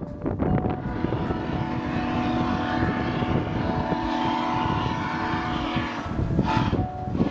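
Camera drone's propellers whining steadily, with rough wind-like noise underneath. The whine drops away briefly just after the start and again near the end.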